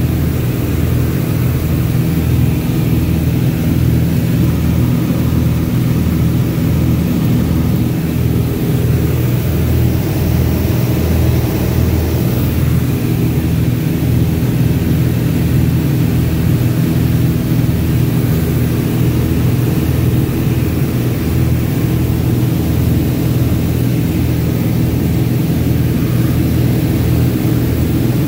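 Single-engine piston airplane's engine and propeller running steadily, heard from inside the cockpit as an even, loud drone with a regular low pulse.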